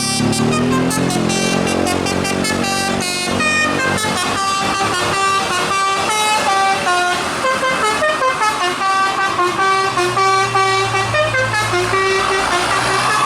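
Bus 'telolet' musical air horn playing a melody of stepped notes, with a run of short choppy notes in the middle, over the bus's engine running.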